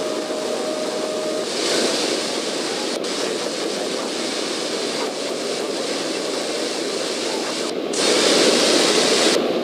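Steady drone of a Cessna's engine and propeller mixed with airflow rush, heard inside the cabin in flight. A thin steady tone sounds for the first second or so, and the noise swells a little near the end.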